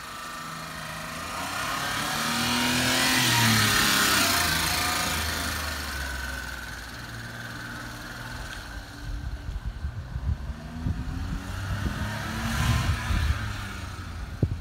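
Suzuki Carry kei truck driving past: its small engine pulls, rising in pitch and growing louder to a peak about four seconds in, then fading as it drives away. Near the end it is heard again, under gusts of wind buffeting the microphone.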